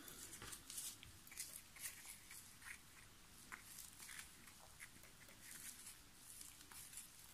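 Faint, irregular light clicks and crackles from resin-crafting cups and tools being handled on the work surface.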